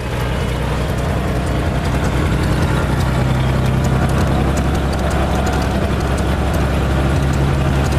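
Piston engine and propeller of a single-engine light aircraft running steadily, heard from inside the cockpit as a loud, even drone with a low hum.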